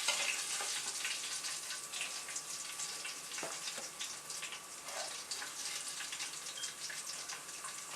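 Fish pieces frying in hot oil in a pan: a steady sizzle with fine crackles.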